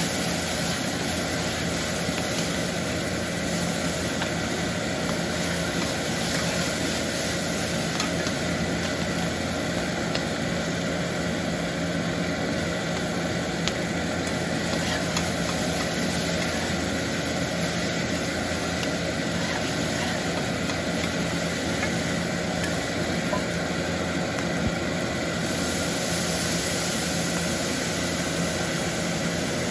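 Horumon (offal) sizzling steadily on a flat iron teppan griddle, over a steady low hum from the kitchen.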